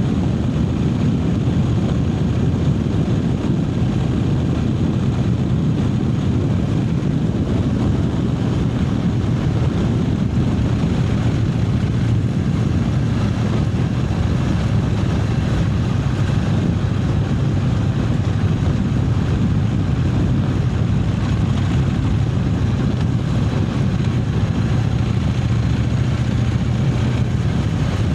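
Triumph Speed Twin 900's parallel-twin engine running at a steady cruise, its pitch held nearly level, over a steady rush of air and road noise.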